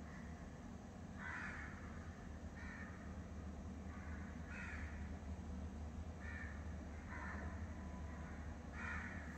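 Crows cawing in the background, about six short caws spaced a second or two apart, over a steady low hum.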